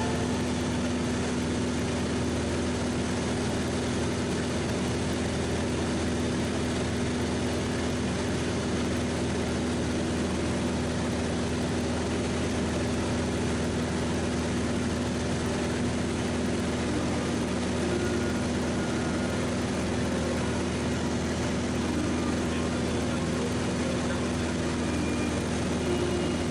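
Single-engine light aircraft's piston engine and propeller droning steadily in cruise, heard from inside the cockpit, with a constant rush of air over the airframe.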